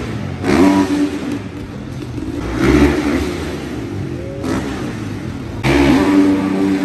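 Freestyle motocross bikes revving hard as they take off on the jumps, the engine pitch sweeping up sharply about half a second in and again near the end. The sound changes abruptly a few times.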